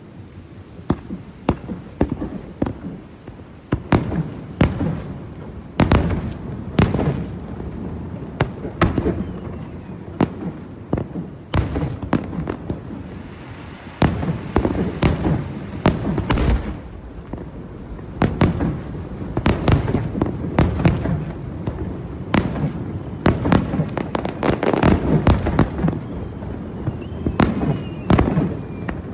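Aerial fireworks bursting in a continuous barrage: many sharp bangs in quick succession over a steady low rumble, with the densest volleys coming in clusters.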